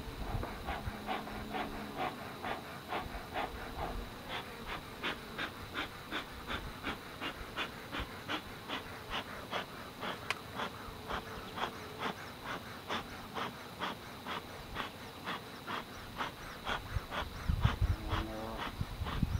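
A bee smoker's bellows pumped in quick, even puffs, about three a second, over the buzzing of honeybees. A few low thumps near the end.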